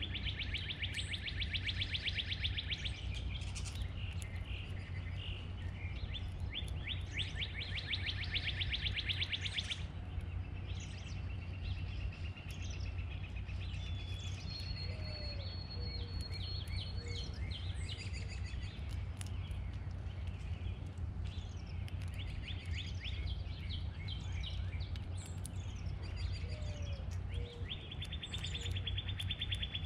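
Backyard songbirds singing: a fast, even trill lasting about three seconds comes three times, near the start, about a third of the way in and at the end, with scattered short chirps and a held high whistle between. A steady low rumble lies underneath throughout.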